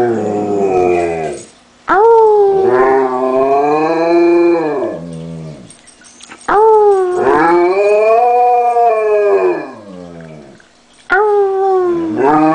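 A person howling like a wolf to get a German shepherd to howl: a series of long howls, each opening with a quick downward slide, holding, then falling away.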